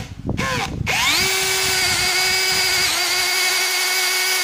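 Aneerpower BL-5120 cordless brushless hammer drill with a 9 mm bit drilling through a metal plate held in a vise. After a couple of short blips, the motor whines up about a second in and runs at a steady pitch, dipping briefly once under load.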